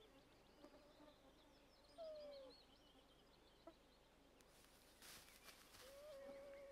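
Near silence: faint high bird chirps and the short whines of flying insects passing close to the microphone. One whine comes about two seconds in, falling in pitch, and another comes near the end, rising and then holding steady.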